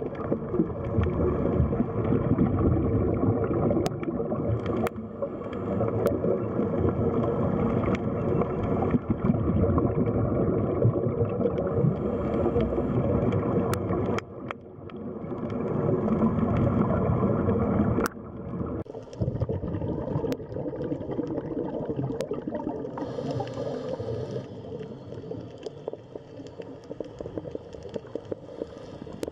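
Underwater ambience: a dense, low rushing and gurgling of water with a few sharp clicks, becoming quieter and thinner about two thirds of the way through.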